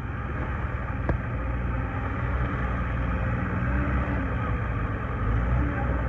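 John Deere 318D skid steer loader's diesel engine running under way as the machine drives, growing louder over the first couple of seconds and then holding steady. A single sharp click about a second in.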